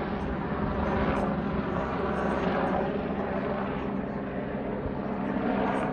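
Police Eurocopter EC145 helicopter circling overhead. Its rotor and engines give a steady drone with a low hum that swells slightly and eases as it turns.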